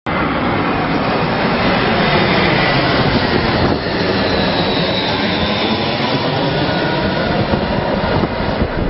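Loud, steady engine roar, with a faint falling whine about midway through.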